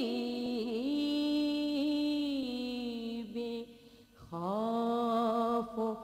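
A woman's solo voice chanting a noha lament with no instruments, drawing out long held notes that bend slowly in pitch. A short break for breath comes about four seconds in before the next long note.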